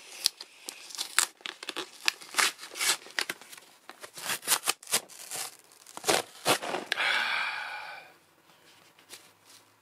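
A cardboard box being torn open by hand: a string of quick sharp rips and crinkles, then one longer tear about seven seconds in.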